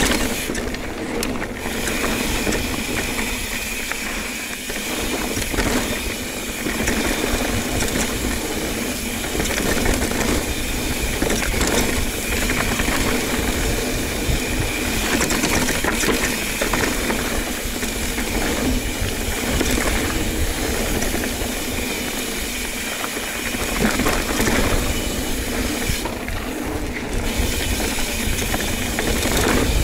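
Ibis Ripley 29er mountain bike ridden along a trail: a steady rush of tyre and wind noise with frequent knocks and rattles from the bike over rough ground, and a steady high buzz underneath.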